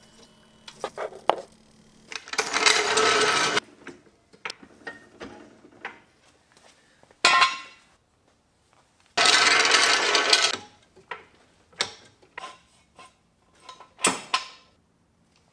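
Metal clanks and clinks of a floor jack and jack stand being worked under a car on a concrete floor, with a loud sharp knock about seven seconds in and another near the end, and two longer noisy stretches of about a second and a half each.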